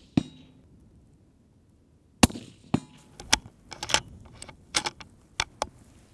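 A .223 Tikka Super Varmint rifle fires once about two seconds in, followed by a quick run of sharp clicks and knocks. A short knock with a brief ring comes just at the start, half a second after the previous shot.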